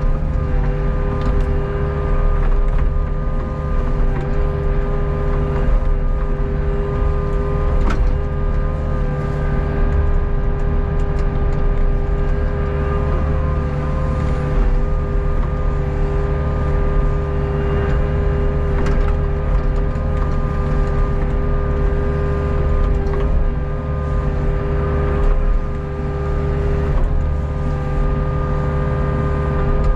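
Hitachi Zaxis 48U mini excavator's diesel engine running steadily from the operator's seat while the boom and bucket work, with a steady whine over the engine and a few knocks.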